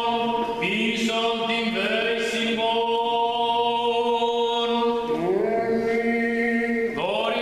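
Greek Orthodox Byzantine chant: a man's voice singing long, drawn-out notes that slide from one pitch to the next.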